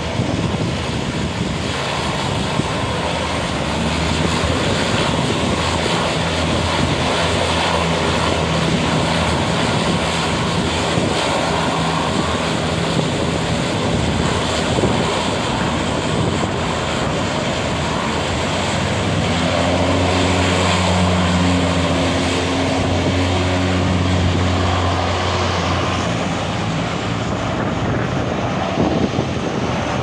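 Twin turboprop engines of a DHC-6 Twin Otter floatplane running at low power as it is worked in against the dock, a steady propeller drone that swells louder for several seconds past the middle and then eases back, over a constant rushing hiss.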